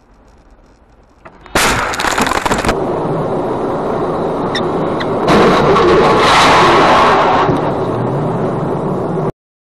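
Dashcam audio of a road collision: a sudden loud crash about a second and a half in, then continuous noise with a few sharp cracks and a second, louder stretch in the middle, cutting off suddenly near the end.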